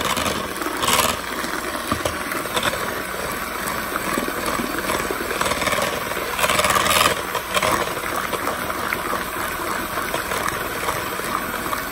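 Electric hand mixer running at high speed, its beaters whirring through thick cake batter in a bowl. It gets briefly louder twice, about a second in and again around six to seven seconds in.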